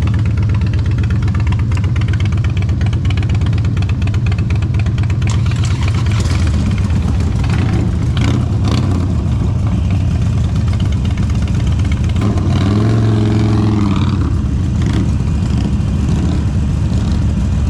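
Motorcycle engine running steadily with a loud, low rumble. About thirteen seconds in, the engine note briefly rises and falls as the throttle is blipped.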